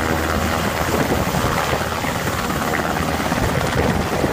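Firefighting helicopter hovering low while it takes on water, its rotor and engine running steadily with an even, rapid blade chop.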